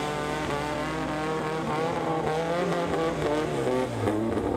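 Tube-frame dune buggy's engine revving hard, its pitch rising and falling repeatedly as the buggy spins its tyres through mud.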